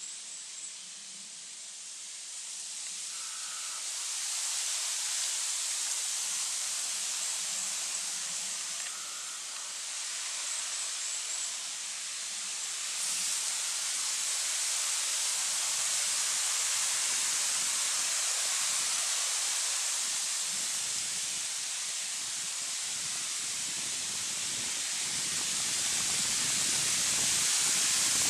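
Steady hiss of outdoor forest background noise, swelling gradually louder.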